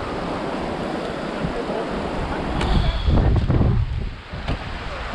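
Mountain stream rushing steadily over rocks, with a gust of wind buffeting the microphone about three seconds in.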